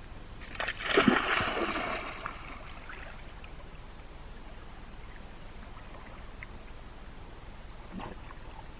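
A Beauceron dog splashing into lake water about a second in as it plunges from the shallows into swimming depth, followed by a faint steady background as it swims.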